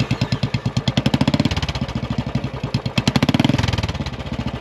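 A Royal Enfield single-cylinder motorcycle engine, just started, idling with an even thump, blipped up twice, about a second in and again about three seconds in.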